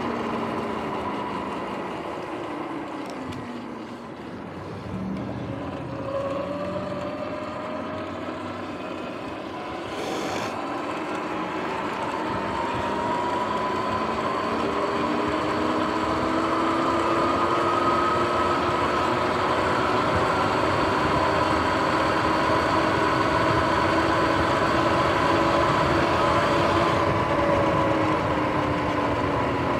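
Sur-Ron X electric dirt bike riding: its motor and drivetrain whine over tyre and wind noise. The whine drops as the bike slows about four seconds in, then climbs as it speeds up and holds steady.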